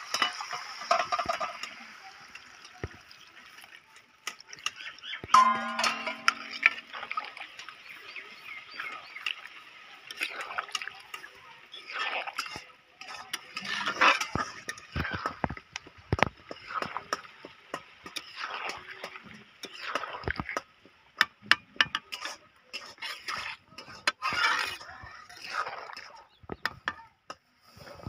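Water poured into a wok of frying young jackfruit and potato, then a metal spatula stirring the pieces in the thin gravy, with repeated scrapes and clinks against the metal pan.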